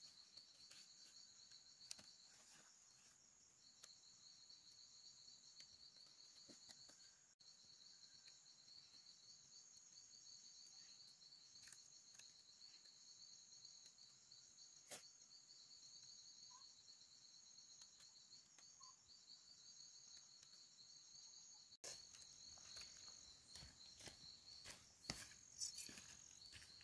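Faint, steady chirring of insects in a high pulsing chorus, with scattered light clicks and taps that come more often in the last few seconds.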